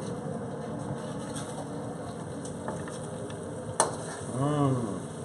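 Metal spatula scraping and clinking against a wok as stir-fried chicken is scooped out onto a plate, with the hot food still faintly sizzling. A sharp clank comes near the end, followed by a short hummed sound from a man's voice.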